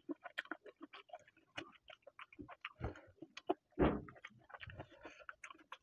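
Close-miked open-mouth chewing and lip-smacking of chicken curry and rice eaten by hand: a quick, irregular run of wet clicks, with a couple of louder mouthfuls about three and four seconds in.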